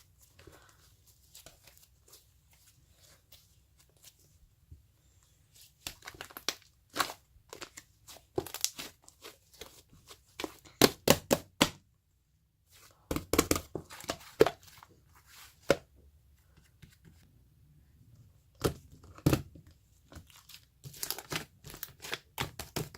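Slime being worked by hand, crackling and popping in several short bursts of rapid clicks with quiet pauses between them.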